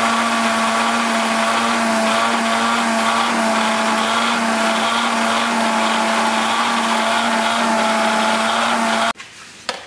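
Countertop juice blender's motor running steadily while it blends egg yolks, vinegar and oil into mayonnaise. It cuts off suddenly about nine seconds in.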